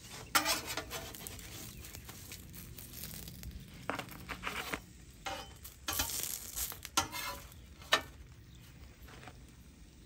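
Steel spatula scraping along the flat-top steel griddle in several short strokes, lifting steamed dumplings off, over a steady faint sizzle of oil and water on the hot griddle.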